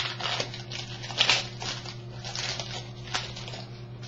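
Foil wrapper of a trading-card pack crinkling and tearing as it is opened, in irregular crackly bursts, the sharpest at the start, about a second in and about three seconds in, over a steady low hum.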